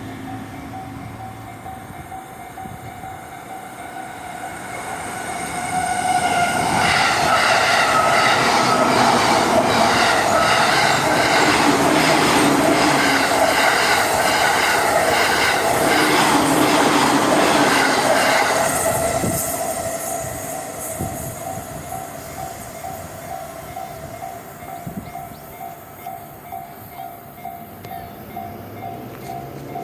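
Railway level-crossing warning bell dinging steadily and evenly throughout. A train passes over the crossing, growing loud about six seconds in and fading about nineteen seconds in, its wheels clattering over the rails. Near the end a rising whine begins.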